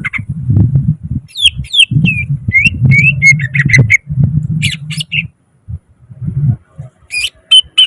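Green leafbird (cucak ijo) singing a fast run of short whistled notes that slide up and down, breaking off about five seconds in and starting again near the end. A low rumble comes and goes underneath.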